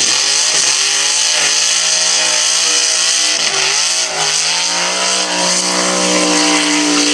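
Fuel-injected Chevrolet Nova drag car doing a burnout: the engine is held at high revs while the rear tyres spin in smoke. The revs dip briefly about three and a half seconds in, then climb and hold steady again.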